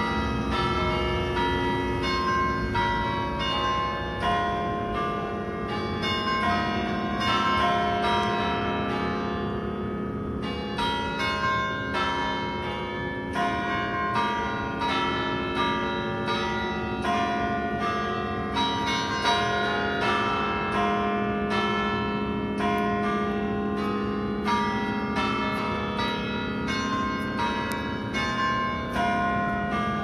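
A peal of church bells ringing continuously, several bells struck in quick, uneven succession with their tones overlapping and ringing on.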